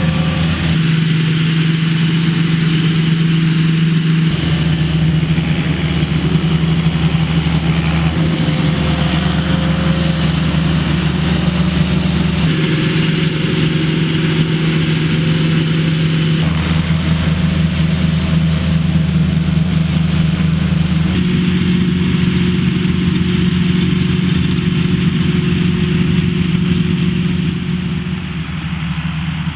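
John Deere 8330 tractor's six-cylinder diesel engine running steadily under load, pulling a Schuitemaker Rapide 3000 loader wagon as its pickup gathers grass. The low drone shifts abruptly in pitch and level several times.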